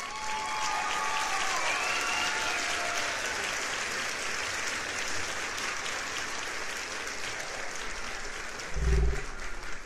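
Crowd applause and cheering, a dense steady clapping with a few whoops in the first few seconds. A couple of low thumps come near the end.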